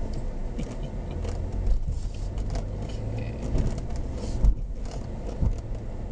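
A car driving slowly over wet pavement, heard from inside the cabin: a steady low engine and road rumble with scattered light clicks, and a few thumps as it goes over bumps, the loudest about four and a half seconds in.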